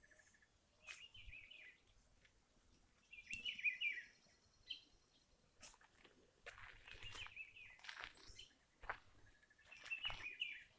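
A songbird singing a short chirpy phrase, repeated about four times a few seconds apart, with scattered faint clicks and ticks between the phrases.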